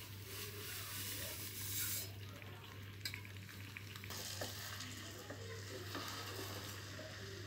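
Sugar poured from a bowl into a kadai of hot milk and semolina, a hissing pour over the first two seconds or so, then a spatula stirring the thick mixture in the pan, with a few light knocks. A steady low hum runs underneath.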